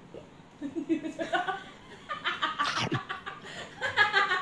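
A group of women laughing in bursts, with a quick run of short 'ha-ha' pulses about a second in.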